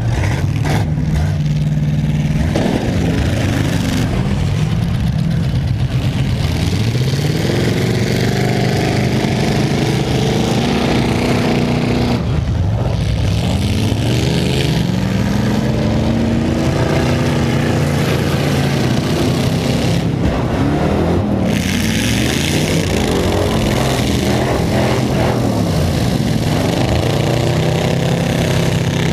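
Several demolition derby cars' engines revving hard at once, their pitch climbing and falling again and again as the cars accelerate and back off, over a loud steady din.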